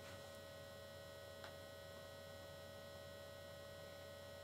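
Near silence with a faint, steady electrical hum from the recording setup, and one faint tick about a second and a half in.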